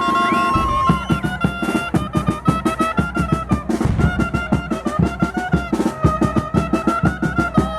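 Chirimía carnival band of brass and drums playing. The horns hold a long note, then about a second in the drums and cymbals launch into a fast, driving beat under the brass melody.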